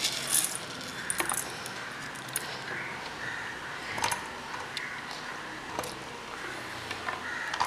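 Light clinks and taps as whole black peppercorns, green chillies and ginger are dropped by hand into a stainless-steel mixer-grinder jar: about half a dozen separate clicks spread over several seconds.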